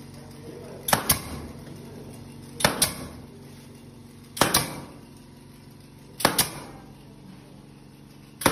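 Pneumatic nail gun firing, driving fasteners through PU faux-stone panels into OSB sheathing: a quick double crack about every two seconds, five times, over a steady low hum.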